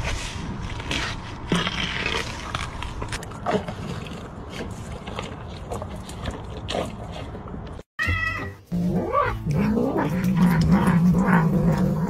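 A rhinoceros crunching and chewing a watermelon, with many short wet crunches. After a brief drop-out about eight seconds in, a cat gives a short high cry. It then keeps up a steady low vocal sound as it eats from a small squash.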